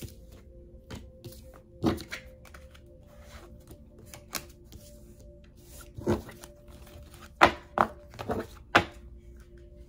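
Tarot cards being gathered up off a cloth-covered table by hand: a series of separate sharp taps and thunks as cards are picked up and handled, the loudest in a quick cluster near the end.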